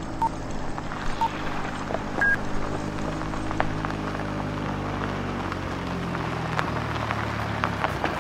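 Film countdown leader beeps: two short beeps about a second apart at the start, then a single higher beep about two seconds in, over a steady low drone of several held tones.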